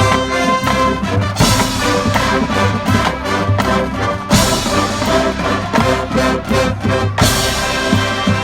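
College marching band playing, full brass sections holding loud chords over drums, with a crash about every three seconds.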